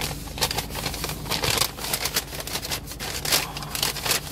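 Paper fast-food bag rustling and crinkling as a hand rummages inside it, in quick irregular scrapes.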